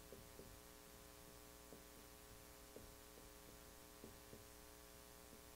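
Near silence: a faint steady electrical hum, with faint irregular ticks from a marker being written on a whiteboard.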